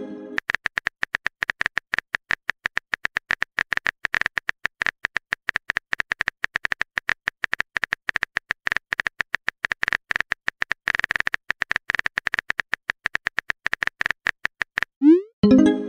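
Rapid, irregular keyboard-typing clicks from a texting app's sound effect. About 15 seconds in, a short upward-sliding pop of the message-sent sound effect follows.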